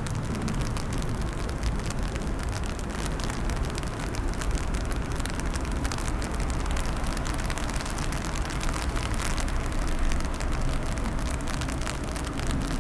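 Steady rain falling, with many small drop taps over a low rumble.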